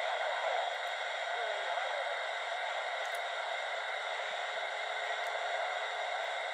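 Steady static hiss from a Fisher-Price toy walkie-talkie's small speaker, its receiver switched on and listening with no clear transmission coming through.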